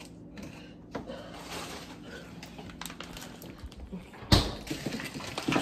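Kitchen handling noises: a few light clicks and knocks over a steady low hum, with one sharp thump about four seconds in, the loudest sound.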